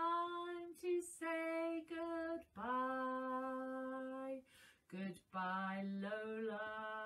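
A woman singing a slow children's song unaccompanied: a few short notes, then a long held lower note, then another phrase of held notes.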